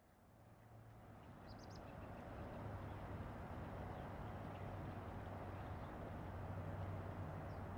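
Outdoor city-park ambience: a steady low traffic rumble that fades in at the start, with short bird chirps about a second and a half in and again near the end.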